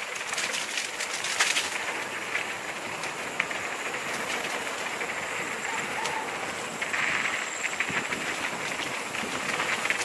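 Mountain bike rolling along a dry dirt singletrack: continuous tyre noise on the dirt, with frequent clicks and rattles from the bike over bumps.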